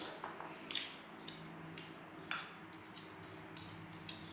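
A few light, separate clinks of eating utensils against ceramic bowls, spread over a few seconds.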